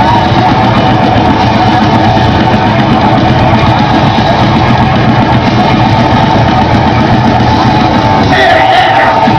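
Live rock band playing, loud and dense. A voice comes in briefly near the end.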